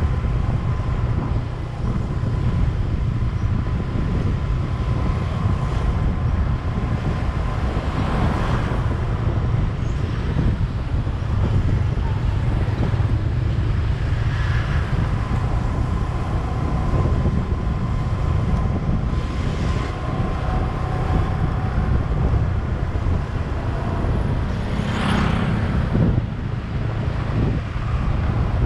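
Road noise from a vehicle driving through town traffic: a steady low rumble with wind buffeting the microphone, and other vehicles passing now and then, the loudest about 25 seconds in.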